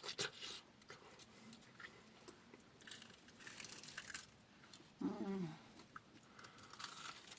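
Close-miked eating sounds: someone biting into and chewing food, with small wet clicks and a few soft crunchy smears. A short vocal sound comes about five seconds in.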